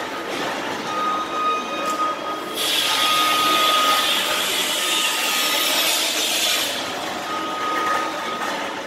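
Construction-site din in a large, hard-walled hall: a power tool whining on a steady high note that stops and starts, and for about four seconds in the middle a loud high-pitched hiss of a tool cutting or blowing.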